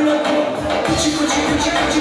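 Live band music through a PA: keyboard accompaniment with a steady low beat and a woman singing a long held note. The beat drops out briefly at the start and comes back about half a second in.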